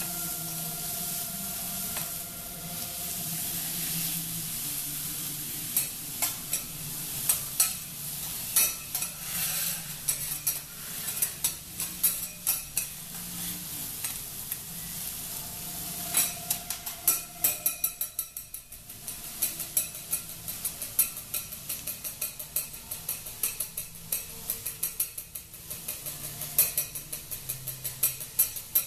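Food sizzling on a teppanyaki steel griddle while metal spatulas scrape and clack against the hot plate. The clacks grow much more frequent in the second half, a quick run of chopping and tapping.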